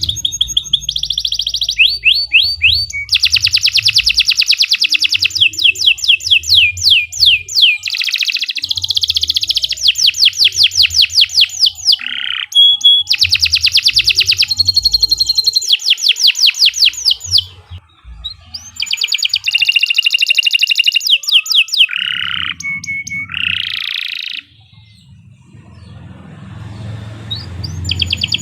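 Domestic canary singing a long, unbroken-sounding song: phrase after phrase of rapid trills of fast repeated notes, with short breaks between phrases and a quieter lull near the end.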